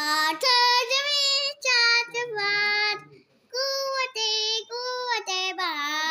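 A young girl singing unaccompanied, holding long notes one after another, a line of a national anthem; she breaks off briefly a little past halfway, then goes on.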